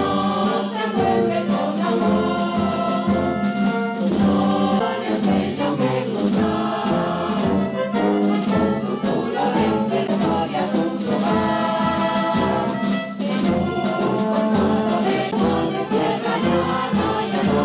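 Wind band playing a hymn, with tuba and other brass over clarinets in steady, unbroken playing.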